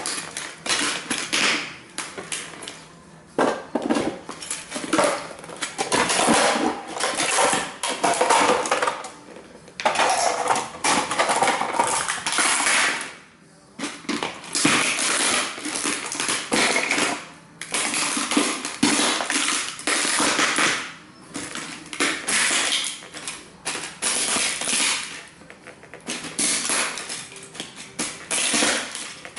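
Cowboy boots stomping and grinding on small model railway buildings: dense crunching and cracking, with broken pieces clattering and scraping, in bursts of a few seconds with short pauses between.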